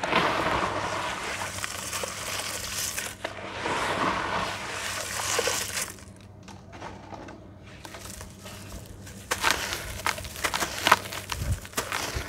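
Hands swishing and sloshing through a basin of foamy muddy water. The sound fades off about halfway through. From about three-quarters in come sharp, irregular crackles and crunches as a dry, gritty red slab is broken and crumbled.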